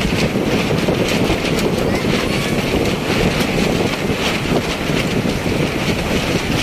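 Sea surf breaking and washing up the sand, with wind buffeting the microphone in a steady, loud rumble.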